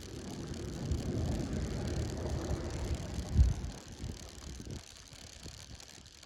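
A mobile phone making an abnormal noise: a rough, low rumble that swells over the first second, peaks with a thump about three and a half seconds in, and dies away by about five seconds.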